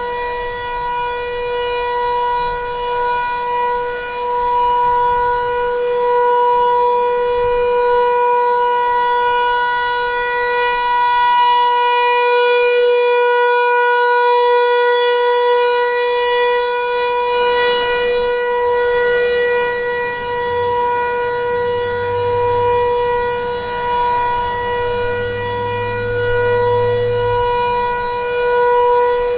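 Federal Signal 508-128 rotating electromechanical outdoor warning siren sounding its steady Alert signal: one held tone at constant pitch that swells and fades slightly in loudness as the siren turns.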